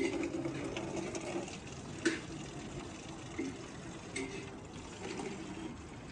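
Water running from a rain-barrel tap into a plastic watering can, filling it in a steady stream.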